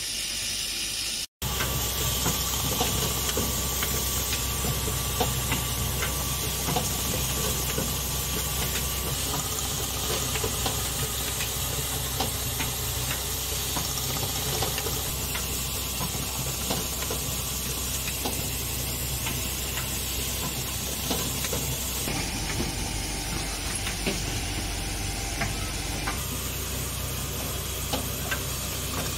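Automated shaft-housing plate assembly and laser-welding machine running with its vibratory bowl feeder: a steady low hum and hiss with frequent light ticks of parts and mechanisms. The sound breaks off for a moment about a second in, and shifts in tone twice in the last third.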